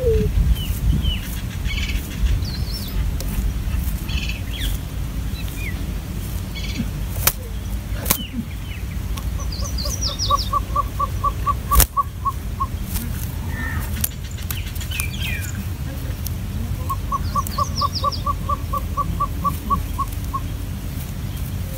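Birds chirping, with two rapid runs of evenly spaced notes, each about two seconds long, over a steady low rumble.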